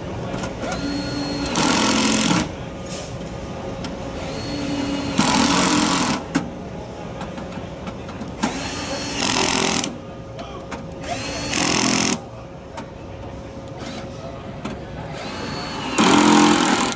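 Cordless drill driving screws into a metal case in five short runs. Each run starts with a rising motor whine and turns louder for about a second as the screw draws tight.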